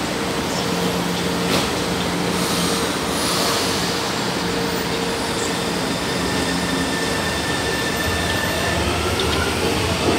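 São Paulo Metro electric trains at a station platform: a steady electrical hum from a standing train, then the running noise of the trains moving, with a faint rising motor whine near the end.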